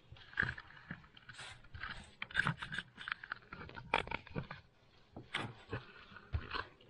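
Gloved hands rubbing spices into a raw pork tenderloin on a wooden cutting board: irregular scraping and rustling with small clicks.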